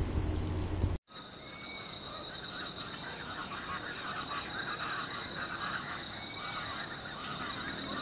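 A brief low hum with a couple of whistled calls cuts off about a second in. After that, a forest animal chorus runs on: a steady high-pitched insect drone with many short chirping calls beneath it.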